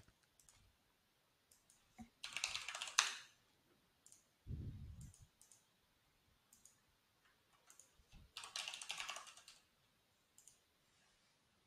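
Faint typing on a computer keyboard, entering a login username and password: two short runs of keystrokes, about two seconds in and again near nine seconds, with a few single clicks between. A brief low sound comes near five seconds.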